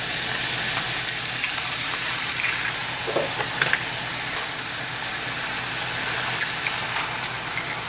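Mixed vegetables sizzling steadily in olive oil in a nonstick frying pan, with a few short clicks and taps as eggs are cracked and dropped into the pan.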